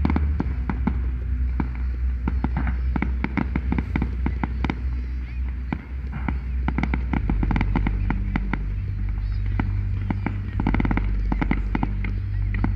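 Fireworks display: many irregular sharp bangs and crackles, several a second, over a steady low rumble.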